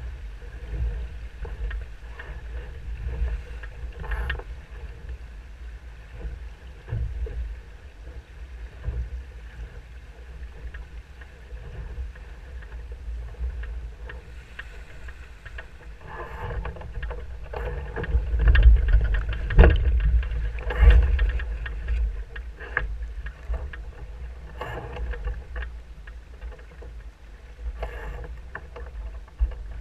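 Wind buffeting the microphone and water rushing and slapping along the hull of a Musto Skiff sailing fast under spinnaker, with scattered knocks and splashes and a louder surge a little past halfway.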